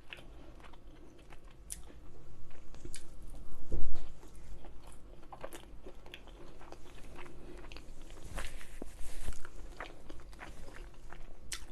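A person chewing a mouthful of juicy chicken tikka masala close to the microphone: many small, sharp mouth clicks, with one louder thump about four seconds in.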